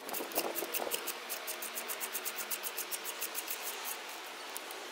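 Socket ratchet clicking in a fast, even run, about seven clicks a second, as an old spark plug is unscrewed from a Ford 2.5 L four-cylinder engine; the clicks fade out near the end.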